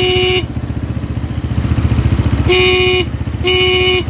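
Honda CG125's electric horn sounding in short blasts: one cuts off just after the start, then two more about a second apart in the second half, over the single-cylinder engine idling. The horn is running off a capacitor fitted in place of the dead battery, and it is working properly.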